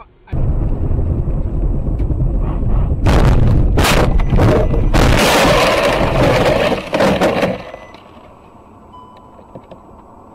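A violent crash heard from inside a car. Loud rushing and rumbling give way, about three seconds in, to a run of heavy bangs and crashing, and the din dies down to a low hum after about seven and a half seconds.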